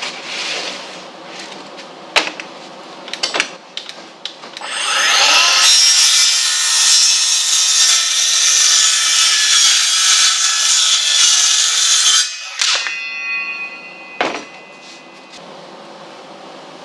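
Electric power saw spins up about four and a half seconds in and cuts through a wooden board for about seven seconds. It is then switched off and its blade winds down with a fading whine. A few sharp knocks come before the cut, as the wood is handled.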